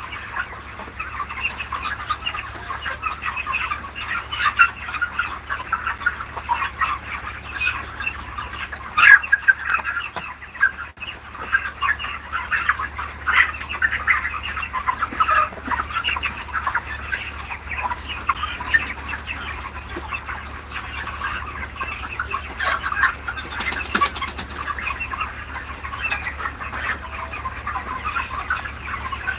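A large flock of chickens calling constantly, many short overlapping clucks and cheeps, with occasional brief wing flapping.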